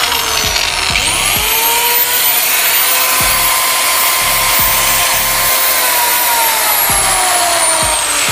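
Laser Tech CM6 6-inch marble cutter's 1700 W motor run as a sound test. It is winding down at first, then switched on about a second in and whines quickly up to full speed. It runs steadily at a high pitch for a few seconds, then is switched off about two seconds before the end and winds down with a falling whine.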